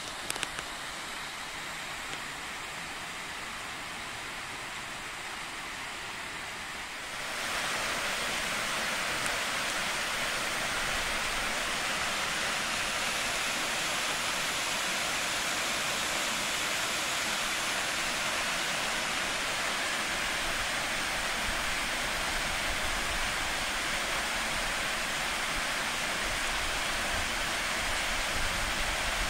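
A waterfall's rushing water, a steady hiss that gets clearly louder about seven seconds in and then holds.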